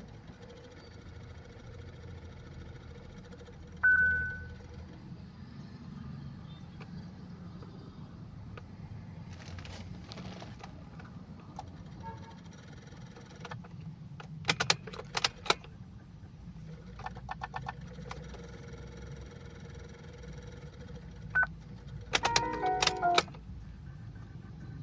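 Hyundai Creta that will not start, its electrics acting up: a short high warning beep about four seconds in, then several bursts of rapid clicking mixed with short chime tones, over a low steady hum.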